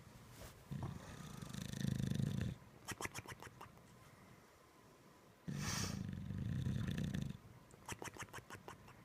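A sleeping bulldog snoring deeply: two long, buzzy snores about four seconds apart, each followed by a short fluttering rattle.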